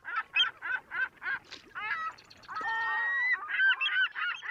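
Yellow-legged gull calling: a quick run of short cries that rise and fall in pitch, one longer held call about two and a half seconds in, then more short cries.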